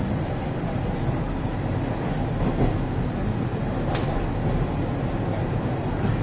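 TTC Line 1 subway train running between stations, heard from inside the car: a steady rumble of wheels on rails, with a faint click about four seconds in.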